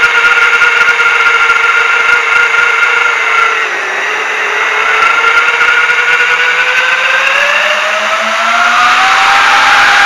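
FPV quadcopter's motors and propellers whining steadily, dipping briefly about four seconds in, then rising in pitch as the drone throttles up into a climb.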